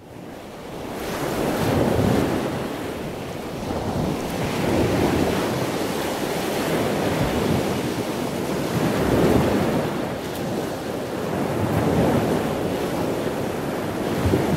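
Sea waves breaking and washing onto a beach, fading in over the first two seconds, then swelling and easing every three seconds or so, with wind.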